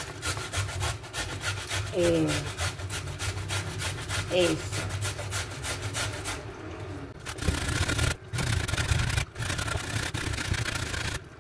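Carrot being grated on a metal box grater: rapid, repeated scraping strokes, with a couple of brief breaks in the second half.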